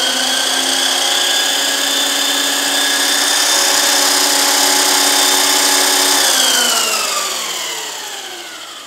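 Delta 22-560 portable thickness planer running empty, its motor, cutterhead and freshly refitted serpentine drive belt giving a steady high whine. It is switched off about six seconds in and winds down with a falling whine. This is a test run to see whether the new belt stays on a slightly wobbling pulley, and it runs without trouble.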